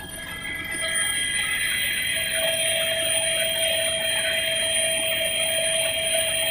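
Helicopter cabin noise in flight: the engine and transmission whine as several steady high tones over the rush of the rotor and airflow, growing louder about a second in.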